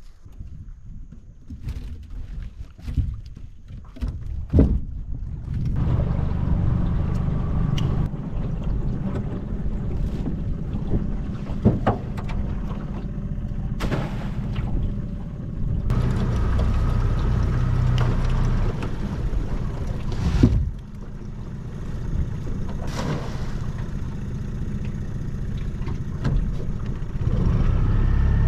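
Light knocks and handling noises, then from about six seconds in an engine running steadily with a low rumble, with scattered knocks and clunks over it.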